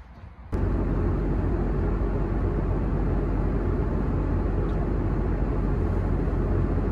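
Airliner cabin noise in flight: a loud, steady rush, strongest in the low range, starting suddenly about half a second in.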